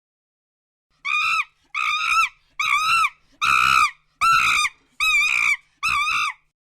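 An animal calling seven times in a regular series, short high calls about a second apart, each rising and falling in pitch.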